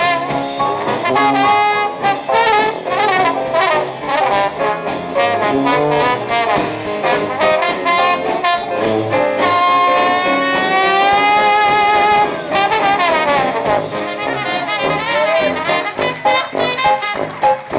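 Traditional Dixieland jazz band playing together: cornet, clarinet and trombone over piano, guitar, drums and sousaphone. Midway one horn holds a long high note for about three seconds, then drops away in a falling run as the ensemble carries on.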